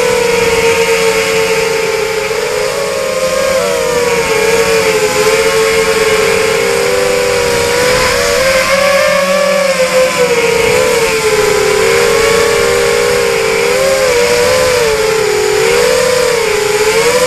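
Racing quadcopter's four Quanum 2204 2300KV brushless motors spinning KingKong 5040 three-blade props, a steady whine heard from the onboard camera. The pitch dips and rises with the throttle, the motors' tones splitting apart and rejoining as they change speed, over a steady hiss.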